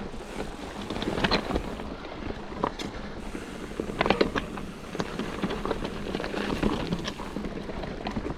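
Mountain bike rolling down a rough trail: tyre noise over dirt and rocks with scattered clicks and rattles from the bike, and wind noise on the microphone.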